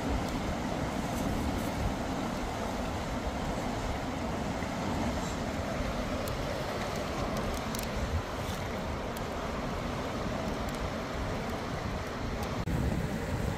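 Steady rushing of a fast, shallow river running over rocks, with wind rumbling on the microphone.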